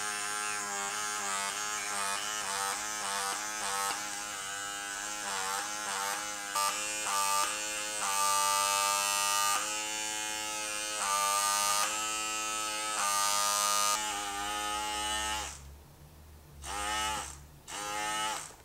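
Small battery-powered pore vacuum (blackhead suction cleanser) buzzing, its pitch shifting up and down in steps while it is pressed to the nose. It cuts out about three-quarters of the way through, leaving a few faint knocks. The suction is weak, with no sucking power at all, which she puts down to the battery possibly facing the wrong way.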